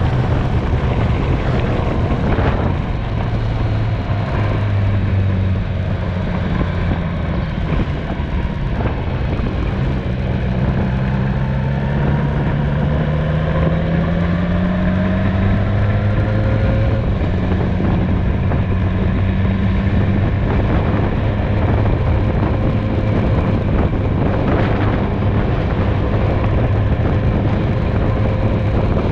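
Motorcycle engine running steadily at road speed, its pitch climbing slowly for several seconds around the middle as it gathers speed, then holding level, with steady wind noise over it.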